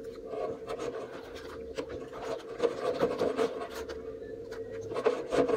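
Hands swishing and splashing through soapy water in a stainless steel sink while a garden hose runs cold water in, with many small irregular splashes and clicks.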